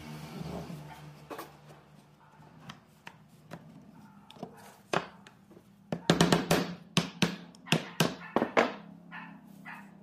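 Wood-on-wood knocks as a heavy wooden bar hammers the joints of a pine board panel tight: a quick run of about ten sharp knocks starting about six seconds in, after quieter handling of the boards.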